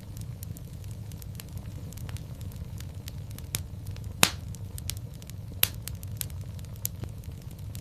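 Wood fire in a fireplace crackling: a steady low rumble of flames under scattered sharp pops, the loudest about four seconds in and another about a second and a half later.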